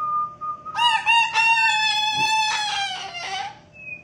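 A plain, steady whistled note, then about a second in a white cockatoo lets out a loud, harsh, drawn-out whistle-like call lasting nearly three seconds, its pitch sagging slightly near the end. This is the cockatoo imitating a man's whistle.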